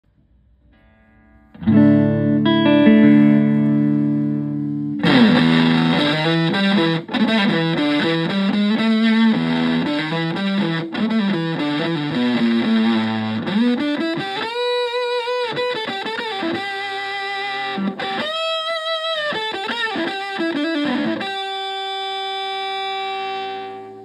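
Fender Stratocaster played through a Vox Tone Bender–style fuzz pedal into a Twin Reverb–type valve amp: a thick, distorted chord rings out, then a fuzzy lead line with string bends and vibrato, ending on a long sustained note.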